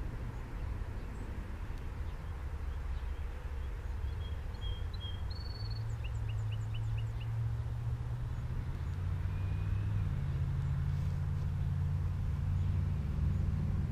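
A low steady rumble that slowly grows louder, with a small bird chirping a few short, quick notes around the middle.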